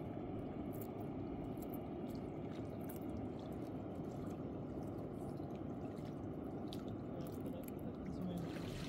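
Water: a steady low rush with scattered small drips and splashes.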